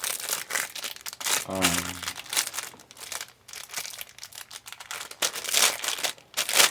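Plastic packaging crinkling and rustling irregularly as it is handled and opened.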